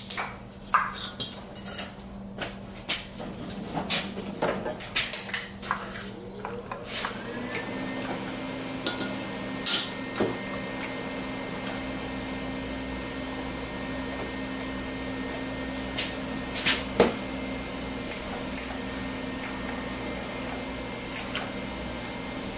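Pieces of metal clanking and clinking as they are handled. About seven seconds in, a machine's motor spins up with a rising whine and then runs on with a steady hum, under a few more knocks.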